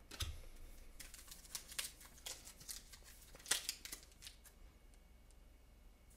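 Hands handling trading cards and a sealed foil card pack: a run of short rustles and clicks, the loudest about three and a half seconds in, dying away over the last second or so.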